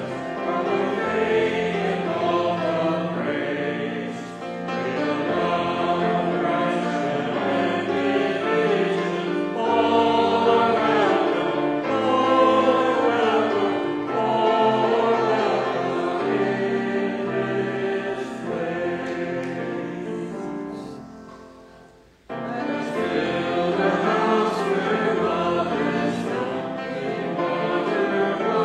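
A hymn sung by a group of voices in several parts. The singing fades and breaks off briefly about 22 seconds in, then the next verse starts straight away.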